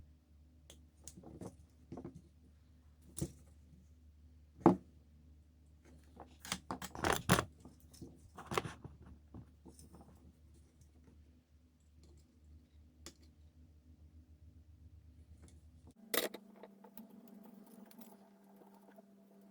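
Scattered small clicks, knocks and rustling of tools and small parts being handled, busiest for a couple of seconds near the middle, over a steady low hum. The hum stops about 16 s in and a different, higher hum takes its place.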